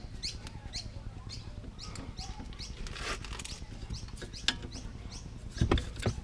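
Hand ratchet clicking over and over as it works a worn sway bar link's lower nut loose, with two louder knocks near the end.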